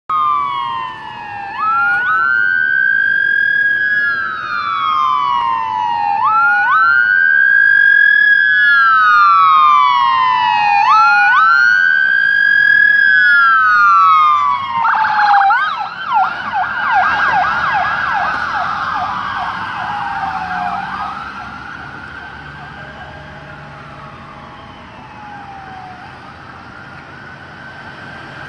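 Ambulance siren sounding a wail, rising quickly and falling slowly about every four and a half seconds. About halfway through it switches to a fast yelp for a couple of seconds, then returns to the wail and fades as the ambulance passes and drives away.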